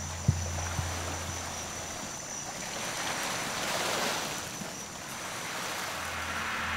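Small waves lapping at a shore, a soft rushing wash that swells and eases, with a steady high-pitched tone above it and a couple of faint clicks near the start.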